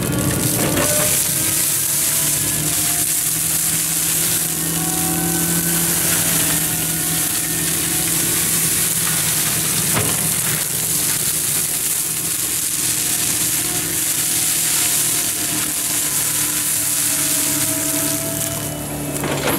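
An FAE forestry mulcher on an excavator arm shredding dense bamboo grass and brush. The spinning rotor teeth make a steady crackling, hissing clatter as they tear through the stems, over a steady low drone from the machine, with one sharp knock about halfway through.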